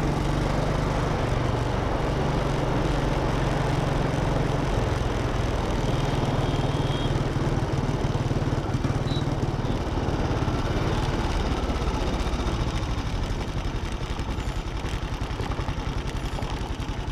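Motorcycle engine running as the bike is ridden along a road, with wind rushing over the microphone. The engine note fades near the end as the bike slows.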